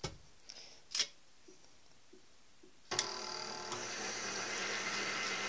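KitchenAid tilt-head stand mixer: two sharp clicks in the first second as its head is lowered into place over the bowl, then about three seconds in the motor starts and runs steadily with a whine, the paddle beginning to mix water, yeast and flour.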